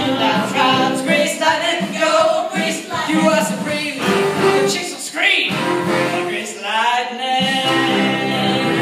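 Live musical-theatre performance: a cast singing an upbeat rock-and-roll number together over musical accompaniment.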